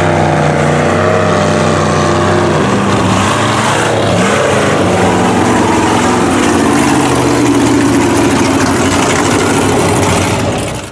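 Engine of a lifted Chevrolet Silverado mud truck running loud and hard, first through deep water. About three seconds in the steady note breaks up and its pitch starts to wander. The sound fades out right at the end.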